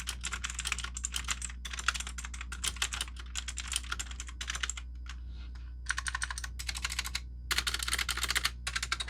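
Typing in fast runs on a budget K400 mechanical keyboard with clicky blue switches, each keystroke a sharp click. There are brief pauses about five and seven seconds in. The keys rattle and ping, which is typical of a very low-budget keyboard.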